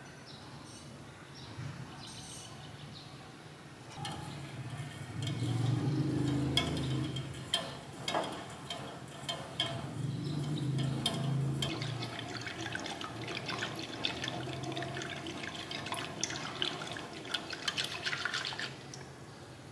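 Wire whisk stirring liquid in a saucepan: sloshing with many quick, light clicks of the wires against the pot, starting about four seconds in.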